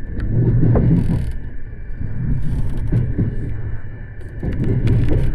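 Electric commuter train running, heard from inside the front of the train: a low rumble that swells and eases, with a few sharp clicks.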